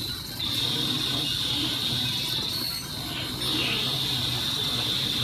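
Stepper motors of a small desktop CNC machine running as its axes are jogged from a handwheel pendant: a high, steady whine that comes in about half a second in, wavers and drops away briefly around three seconds, then returns, over a low hum.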